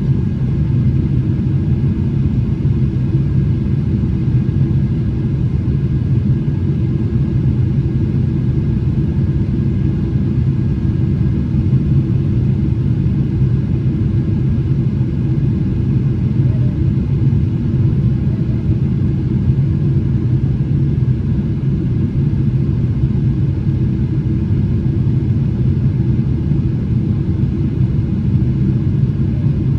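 Steady cabin noise of a Boeing 777-300ER heard from inside the passenger cabin: a constant low rumble of its GE90 engines and airflow, with a steady hum and no change in pitch or level.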